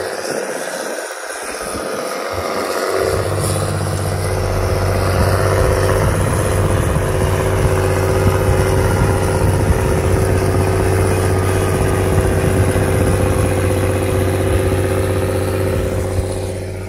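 Large farm tractor's diesel engine running steadily under load, growing louder over the first several seconds and fading near the end.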